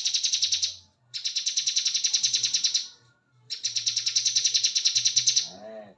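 Bar-winged prinia (ciblek kebun) singing its rapid, machine-gun-like 'ngebren' trill of fast repeated high notes, in three long bursts with short pauses about a second in and about three seconds in.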